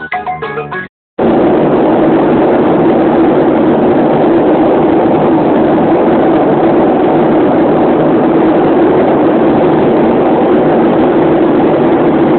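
Steady, loud drone of aircraft engines, an air-raid plane sound, cutting in abruptly about a second in after a short stretch of music stops.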